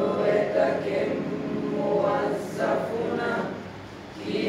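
A mixed group of young men and women reciting a text together in unison, in a chant-like cadence, with a short pause shortly before the end.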